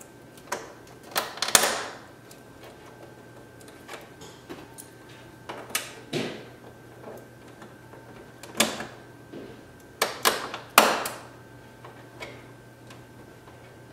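Hands fitting a plastic tube bracket and bar onto ink tubing inside an open inkjet printer: scattered plastic clicks and knocks in small clusters, the loudest a little over a second in and again about ten to eleven seconds in.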